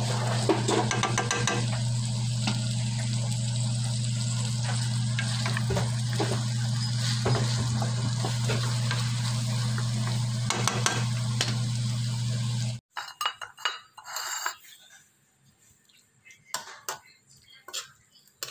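A wooden spatula stirring and scraping bitter gourd, egg and vegetables in a wok, with sizzling and clicks against the pan over a steady low hum. About thirteen seconds in, the hum and sizzle cut off abruptly, leaving only scattered spatula scrapes and taps.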